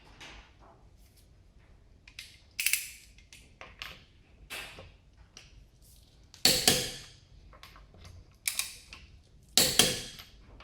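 Irregular sharp metallic clicks and clanks, each ringing briefly, from a hand torque wrench and socket working on car lug nuts as they are tightened back to spec.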